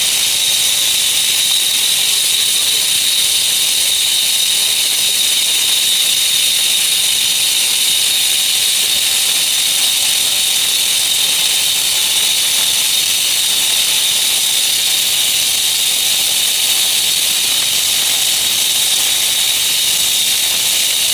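Angle grinder running steadily under load for the whole stretch: a high-pitched whine over a loud, even hiss.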